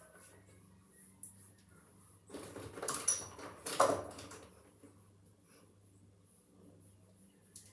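Rustling and clattering as toiletries are handled at a bathroom counter, in one burst around the middle with two sharper knocks, over a faint steady hum.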